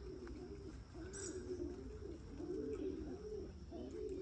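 Domestic pigeons cooing, a continuous run of low rolling coos, several overlapping.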